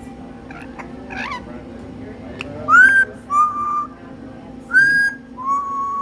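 Amazon parrot whistling a two-note phrase twice, from about halfway in: a short rising note, then a lower note held level. Softer chirps come before it.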